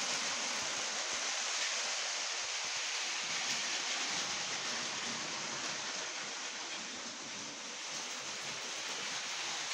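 LEGO toy trains running on plastic track: a steady, even rushing hiss with no distinct clicks or rhythm.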